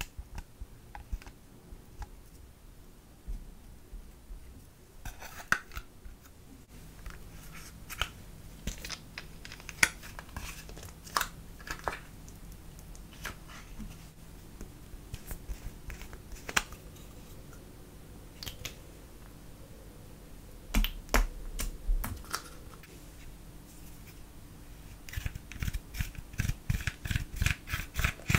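Scattered clicks and scraping taps of a tool working pressed makeup out of eyeshadow palettes and onto a clear plate. About 25 seconds in, a quick run of crackling clicks as pressed powder bronzer is crushed and broken up with a plastic stick.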